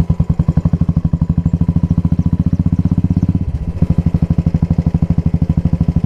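Royal Enfield Stealth Black's single-cylinder engine running at low revs under way, a steady beat of about a dozen exhaust pulses a second. It eases off briefly a little past halfway, then picks up the same beat again as the bike is ridden slowly over a muddy road.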